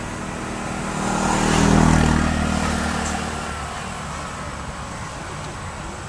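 A motor vehicle passing by: its engine swells to a peak about two seconds in and then fades away.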